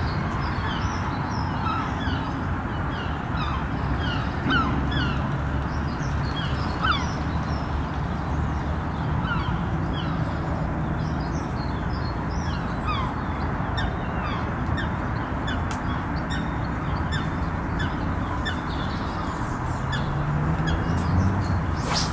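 Small birds chirping and calling again and again over a steady rush of wind on the microphone.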